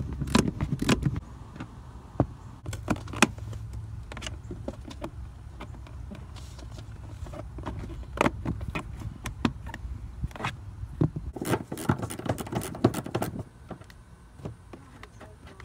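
Irregular clicks, knocks and metallic clinks of hand tools (a screwdriver and a ratchet with socket) working plastic trim loose at a truck seat's mount, over a low rumble that stops near the end.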